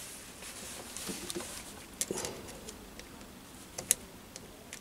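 A crosshead screwdriver tightening the small screw of a cable lock on a motorcycle chain oiler's pump, with faint scrapes and a few scattered sharp metal clicks, the sharpest a little before the end.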